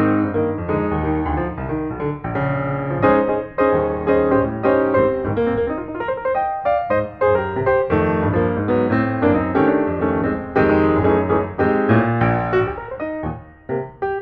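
Background piano music, a steady flow of many quick notes, briefly dipping quieter near the end.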